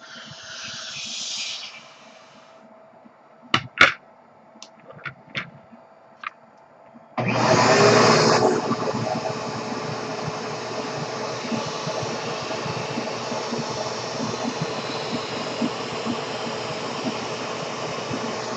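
Vacuum cleaner switched on about seven seconds in and running steadily, its hose nozzle sucking air behind a balloon-powered toy car. Before it starts there is a short hiss and a few sharp handling clicks.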